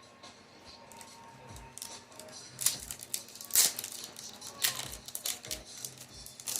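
Yu-Gi-Oh! booster pack and cards being handled: crinkling foil wrapper and rustling card stock in a quick series of short crackly bursts, loudest in the middle.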